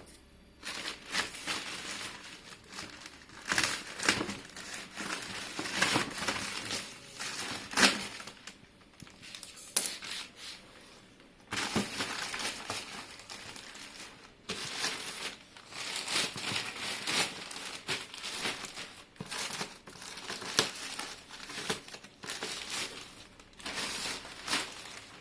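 Packaging being opened by hand: plastic and paper crinkling and rustling in irregular bursts, with several brief pauses.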